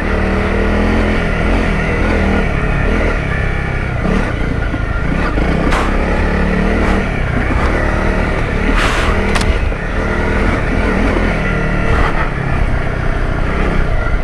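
Honda CRF250 Rally's single-cylinder engine running under way off road, the revs rising and falling with the throttle, with a few sharp knocks about six and nine seconds in.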